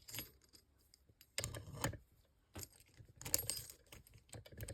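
Key being worked in the keyhole of a large 80 mm lever padlock: metallic clicking and jingling in a few short bursts as the key goes in and turns the levers and bolt.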